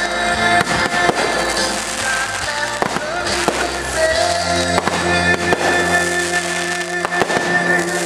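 Aerial fireworks bursting with many sharp pops and crackles, over music playing.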